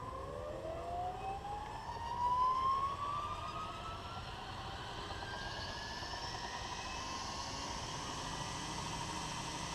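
Scale RC EC145 helicopter spooling up: a whine climbs steadily in pitch over the first three seconds or so, then settles into a steady running whine.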